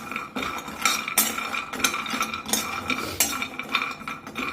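Big spoon stirring almonds in a kadhai, with irregular scrapes and clinks against the pan about twice a second over a faint steady ring.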